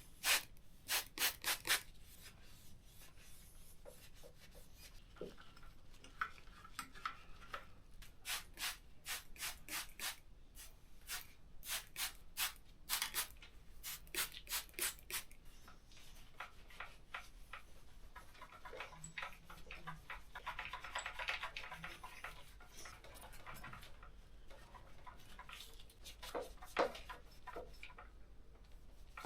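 Bicycle parts being scrubbed clean by hand: runs of quick back-and-forth rubbing strokes, then a stretch of softer, steadier rubbing in the middle, and a few more strokes near the end.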